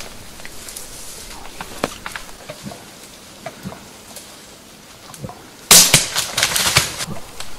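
Scattered small cracks and rustles of dry leaves and twigs in woodland undergrowth, then about six seconds in a sudden loud burst of rustling and crackling brush lasting about a second and a half.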